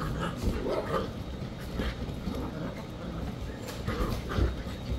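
Dachshund puppies yipping and barking in short bursts while they play-fight, the loudest about four and a half seconds in.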